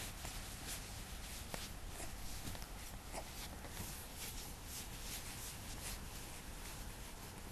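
Quiet room tone: a steady hiss and low hum, with faint rustling and soft handling clicks scattered throughout.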